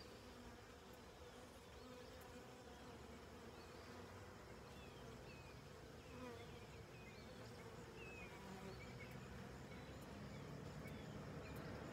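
Honey bees buzzing faintly around an open hive and the frame being held up for inspection, a low steady hum.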